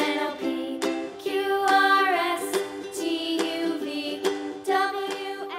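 Background music with plucked strings and a steady beat.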